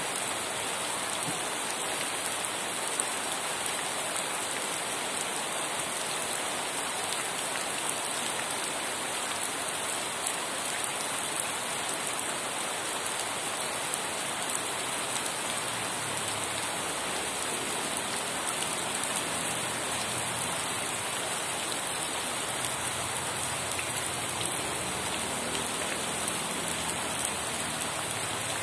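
Steady rain falling, an even hiss with many small drop ticks on a surface.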